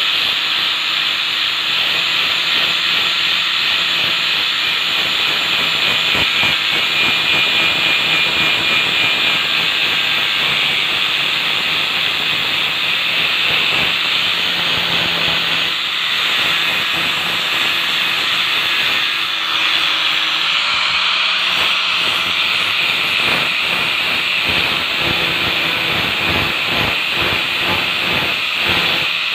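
Electric angle grinder with a sandpaper wheel running steadily against the steel soleplate of a clothes iron, sanding off burnt-on, stuck residue: a loud, continuous high hiss of abrasive on metal.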